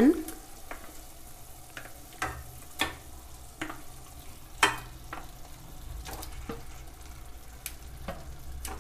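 Raw mutton pieces going into hot mustard oil and ground onion in a kadhai, frying with a low sizzle and a dozen or so scattered sharp crackles and pops.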